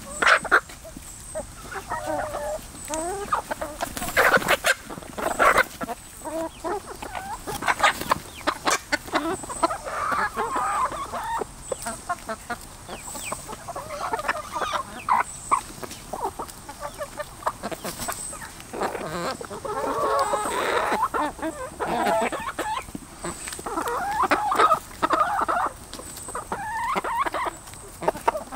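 A flock of backyard chickens clucking and chattering continuously, many short calls overlapping, with scattered sharp taps among them.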